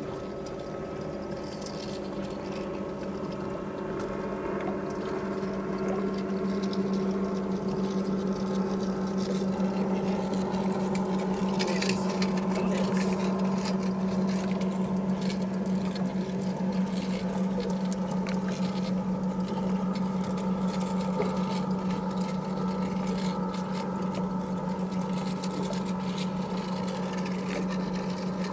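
Baitcasting reel cranked steadily while fighting a hooked blue catfish: a whirring with fast light ticking, over a steady low hum.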